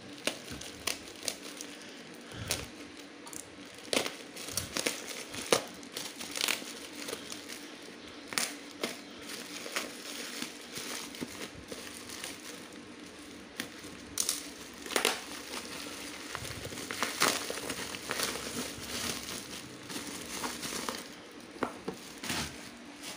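Black plastic parcel wrapping being slit with a utility knife and torn open by hand, in irregular crinkling and crackling.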